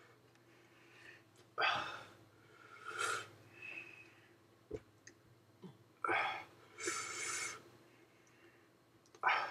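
A man breathing hard through his mouth: a string of short, sharp breaths and puffs every second or two, some in quick pairs, from the burn of a superhot chili pepper.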